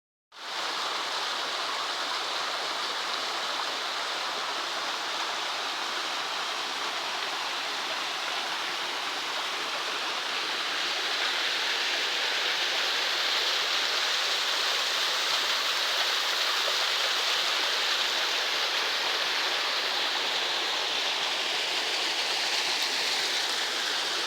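Small waterfall: water falling and splashing in a steady rush, a little louder from about halfway through.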